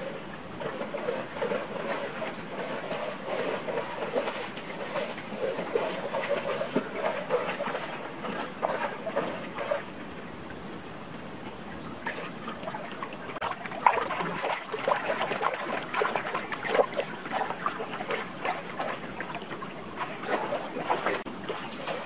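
Shallow forest stream trickling and splashing. From about halfway the splashes come thicker and louder as a person wades and works in the water.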